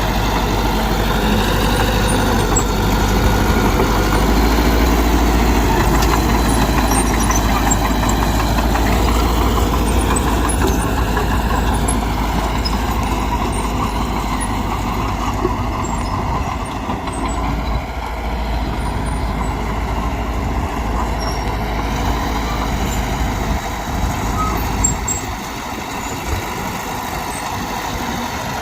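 Diesel engine of a Mitsubishi BD2G bulldozer running steadily, with faint whines that rise and fall. The low rumble drops away briefly a little past halfway and again near the end.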